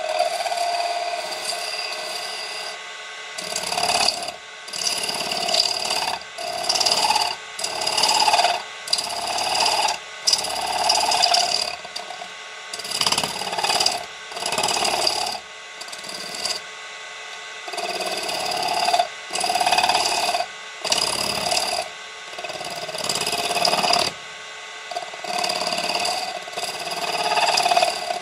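Brass stock spinning on a wood lathe being cut with a woodturning tool: a harsh metal-on-metal scraping with a high squeal, coming in repeated passes of a second or two, each dropping away briefly as the tool lifts off.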